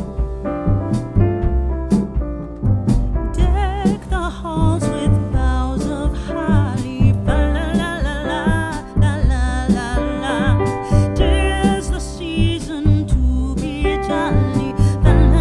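Background music with a bass line and a regular low beat; a singing voice comes in about three and a half seconds in.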